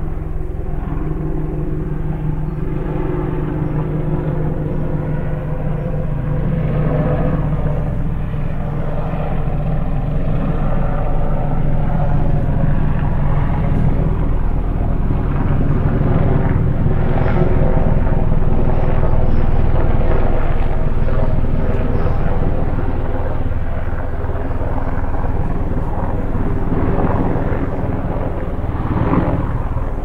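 Steady hum of an aircraft's engine and propellers, growing a little louder through the middle and easing off later, with a few brief swells near the end.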